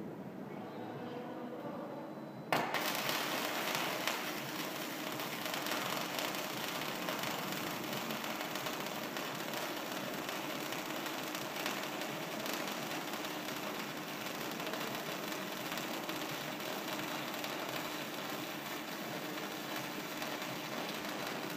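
Robotic MIG/MAG welding arc striking suddenly about two and a half seconds in, then crackling steadily as the torch lays a weld.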